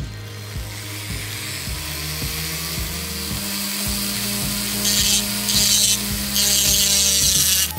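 Small handheld rotary tool grinding the black chassis of a Hot Wheels diecast car, the hiss of the bit building up and then coming in three louder bursts of cutting in the second half.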